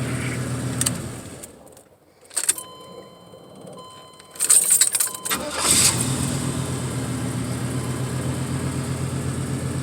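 1988 Chevrolet Caprice engine idling, then shut off about a second in. An electronic warning tone sounds with a key click. The engine cranks and restarts about six seconds in and settles back into a steady idle.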